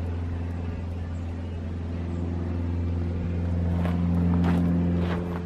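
Yamaha XJ750 Seca air-cooled inline-four engine running steadily on choke just after a cold start, fed by its stock four carburetors after sitting unused. The engine note swells slightly about three seconds in and eases off near the end.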